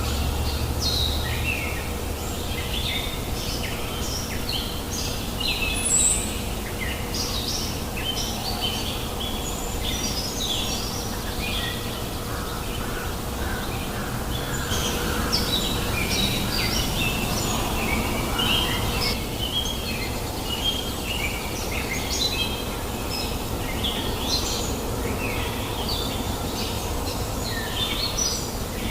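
Many birds chirping and singing, short calls following one another without pause, over the steady low rush of a flowing stream.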